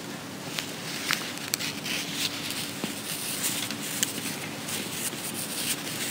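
Soft footsteps and clothing rustle as a person gets up from kneeling and walks away, over a steady room hiss with a faint hum. A few sharp light clicks are scattered through it.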